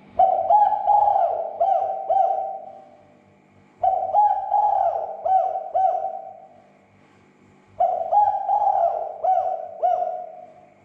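Spotted doves cooing: three bouts of several overlapping coo notes, one about every four seconds, with short pauses between them.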